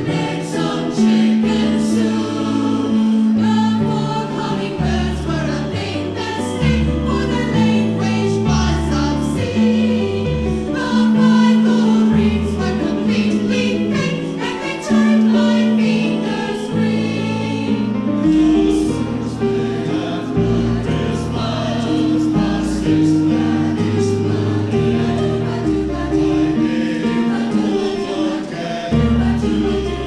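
Mixed choir of men and women singing a Christmas song together.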